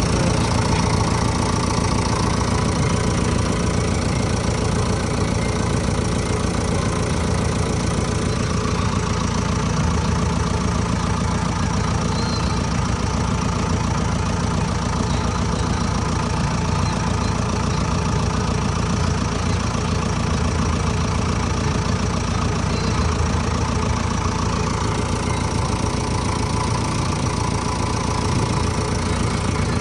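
A heavy diesel engine runs steadily at a low, even speed, close to the microphone. A higher tone in its note fades about eight seconds in.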